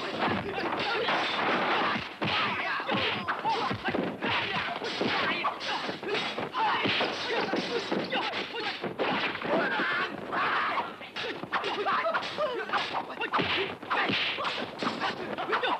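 Kung fu film fight sound effects: a fast, continuous run of punch and kick whacks and hits, several a second, as one fighter takes on a crowd.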